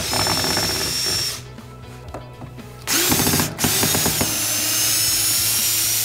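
Cordless 18-volt drill driving a screw into an eastern white cedar board. The motor runs in three spurts: about a second and a half at the start, a brief burst around three seconds in, then a longer run with its whine rising slightly.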